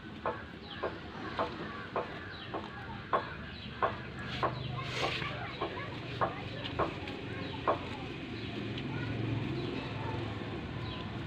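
Chickens clucking: a regular run of short clucks about twice a second that stops about eight seconds in, with short high falling chirps over them.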